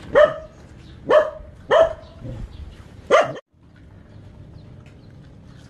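A dog barking: four sharp, loud barks over about three seconds, then the sound cuts off suddenly.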